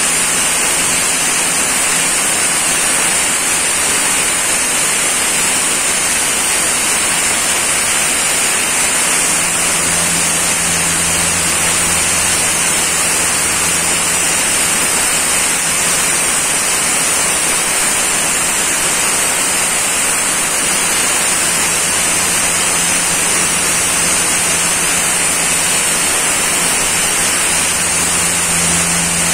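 Sandblaster nozzle blasting abrasive onto a motorcycle engine: a loud, steady hiss. About a third of the way in, a low hum joins it.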